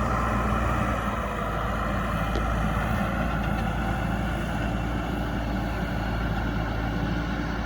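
Diesel engine of a JCB 3DX backhoe loader running steadily at an even pace.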